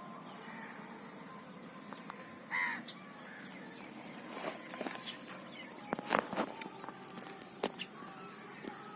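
Insects shrilling steadily in a high, thin drone, with a short bird call about two and a half seconds in and a few faint clicks later on.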